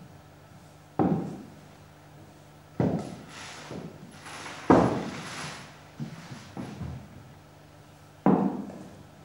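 Six heavy thuds at irregular intervals, each sudden and dying away over about half a second, the loudest about halfway through.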